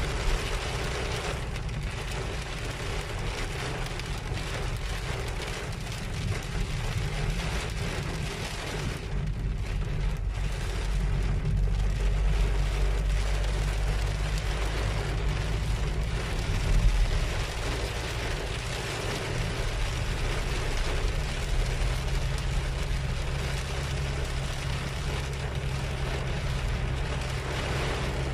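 Heavy rain beating on a car's roof and windshield, heard from inside the cabin over the steady low hum of the car's engine. There is one brief louder knock about seventeen seconds in.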